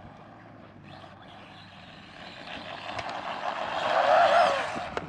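Small brushless RC truck motor whining with wavering pitch as it drives over rough ground, quiet at first and swelling to its loudest about four seconds in, with a sharp click near the end.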